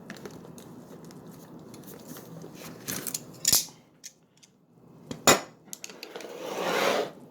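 Metal hand tools clinking and knocking as they are handled and set down, with one sharp clack a little past five seconds in and a rustling scrape near the end.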